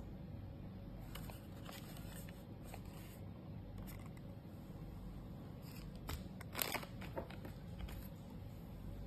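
Hands handling a plastic dome Wi-Fi security camera: faint rubbing and clicks of the housing as its lens head is turned by hand, with a short louder scrape about six and a half seconds in.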